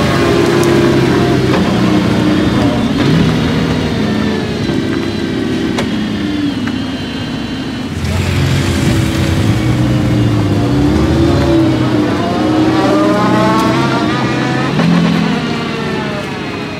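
1998 Mercedes-Benz CLK GTR's 6.9-litre V12 engine running at low road speed, its pitch rising and falling several times as the throttle is opened and closed.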